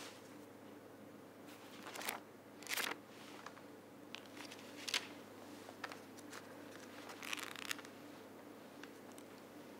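Thin Bible pages rustling and flipping as the book is opened and leafed through: a few short papery swishes, the longest near three seconds in, over a faint steady hum.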